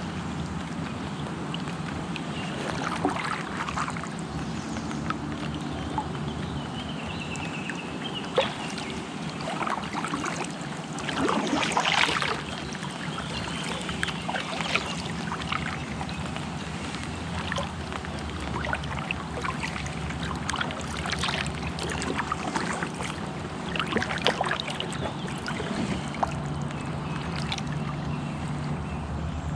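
Kayak paddle strokes splashing and dripping at irregular intervals over a steady wash of moving water, with the biggest splash about twelve seconds in.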